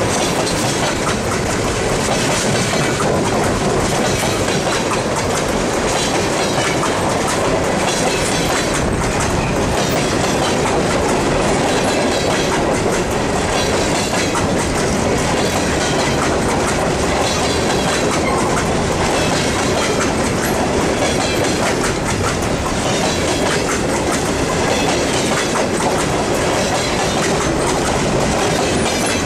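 Freight train cars rolling past at close range, tank cars and then hopper cars: steel wheels running on the rails with a steady loud rumble and repeated clicks, unbroken throughout.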